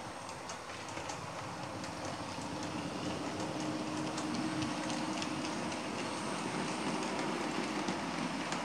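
Model railway locomotive and a rake of wagons running along the layout's track: a steady motor hum with wheels clicking over the rail joints, growing louder over the first few seconds as the train comes past.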